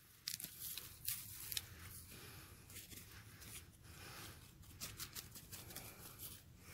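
Faint rustling and crackling of dry straw mulch and leaf litter, with scattered small clicks.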